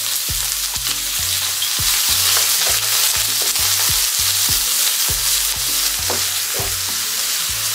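Sliced onions sizzling in hot oil in a nonstick frying pan, with a wooden spatula stirring them and knocking and scraping lightly against the pan again and again.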